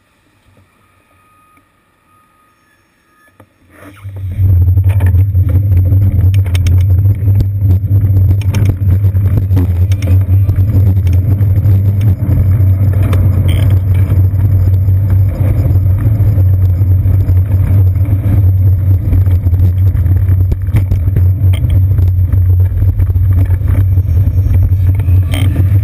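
About four seconds in, a quiet stretch gives way to a loud, steady low rumble with rattling: wind and road vibration on a seat-post-mounted GoPro Hero 2 as the bicycle rides through traffic.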